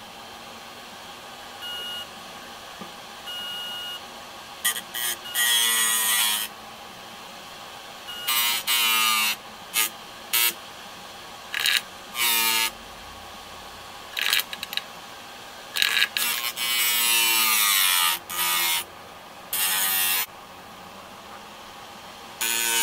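Steel being ground on the spinning platter of an opened computer hard drive used as a bench grinder: repeated harsh grinding bursts, each up to a second or so long, with the drive's whine dropping in pitch as the load slows the spindle. Two short beeps sound about two and three and a half seconds in, over the drive's steady whine.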